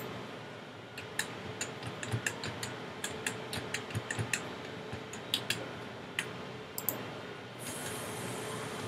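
Many irregular, sharp clicks of a computer mouse, a few per second, over a faint steady hum; a soft hiss comes in near the end.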